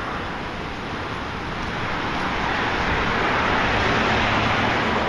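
Minivan driving past on the road: tyre and road noise swelling steadily as it comes near, loudest in the second half.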